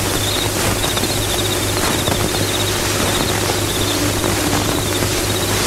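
Steady hiss with a pulsing low hum from an old, worn film soundtrack.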